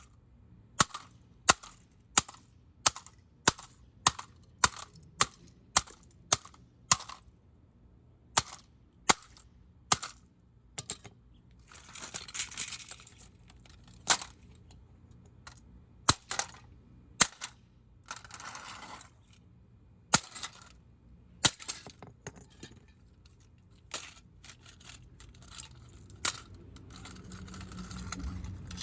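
A vintage 1987 GE alarm clock radio being smashed: a long series of sharp, hard blows, about one to two a second with short pauses. Twice in the middle there is a longer noisy crunch or rattle.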